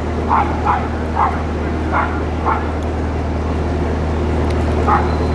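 A dog barking in short yaps, five in quick succession and then two more near the end, over the steady low running of the narrowboat's engine.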